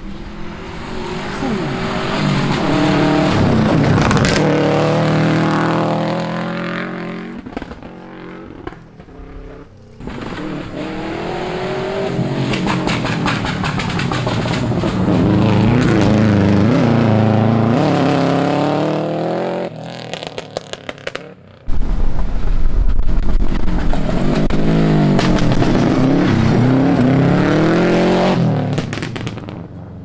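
Rally cars passing at speed on a gravel stage, one after another: engines revving hard, pitch climbing and dropping through quick gear changes as each car goes by. A run of sharp crackles comes about two-thirds of the way through.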